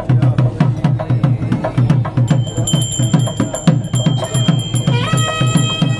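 Temple drumming: a drum beaten in a fast, even rhythm of about four to five strokes a second. A steady high ringing tone joins a little over two seconds in, and a lower held tone enters near the end.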